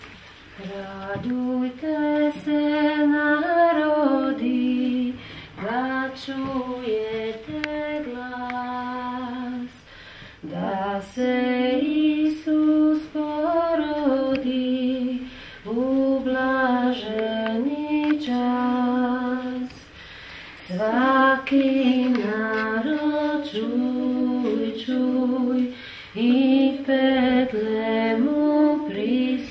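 A woman singing a slow, unaccompanied song in phrases of a few seconds, holding long notes with short breaks between them.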